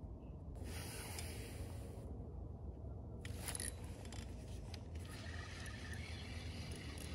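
Soft rubbing and scraping from a feeder rod and reel being handled: the rod lifted from its rod pod and line wound in. It comes in a short spell about a second in, then scratchier from about three seconds on, over a low steady rumble.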